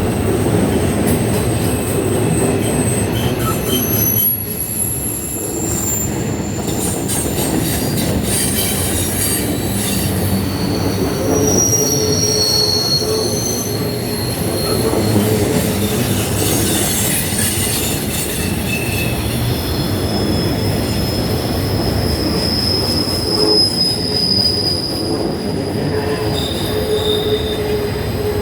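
Train cars rolling past with a steady rumble, and high-pitched wheel squeals that come and go throughout, sometimes several at once.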